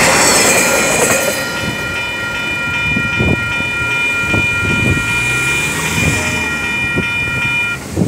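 The tail of a freight train's flat wagons rolling over the crossing with a loud rattling rumble that dies away about a second in. The level-crossing warning bells then ring on steadily while the barrier arms rise, and stop suddenly near the end.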